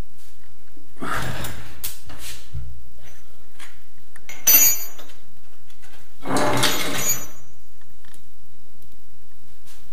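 A cabinet drawer sliding on its metal runners, twice: about a second in and again past the middle, with a short metallic clink between.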